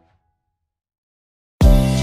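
Silence, then about a second and a half in, background music starts abruptly with a loud, deep, sustained chord.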